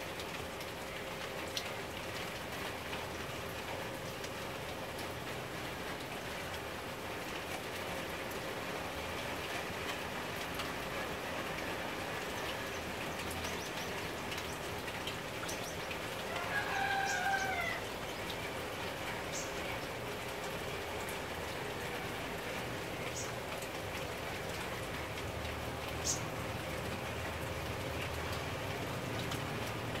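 Garden sprinkler spray falling steadily on tree leaves, a continuous rain-like hiss. About halfway through a bird gives one longer call, and a few short high chirps come later.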